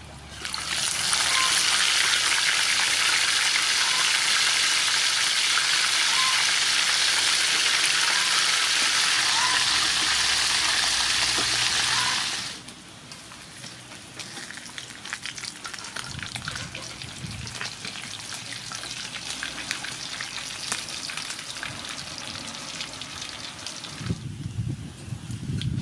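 Fish frying in hot soybean oil in an aluminium wok: a loud, steady sizzle that drops suddenly about twelve seconds in to a quieter, spitting crackle.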